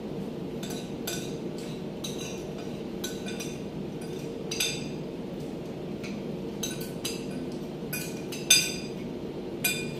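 Forks and spoons clinking and scraping on plates as two people eat, in irregular clicks, the sharpest near the end, over a steady low background hum.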